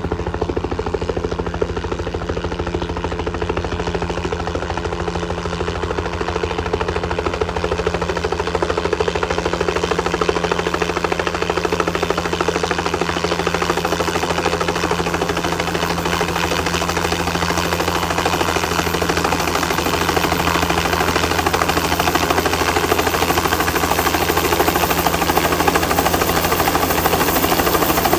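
Air ambulance helicopter's rotor chop and turbine whine, coming in to land and slowly growing louder.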